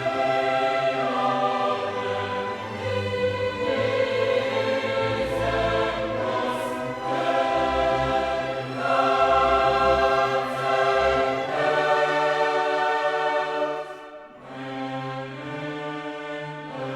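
Choral music with orchestra: a choir singing long held chords.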